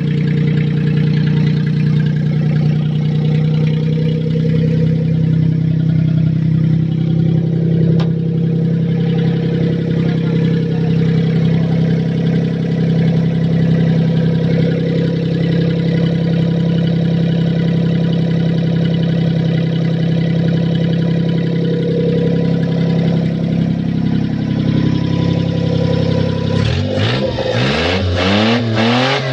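Truck engine with headers on it, idling with a steady, even note, then revved up and down several times near the end.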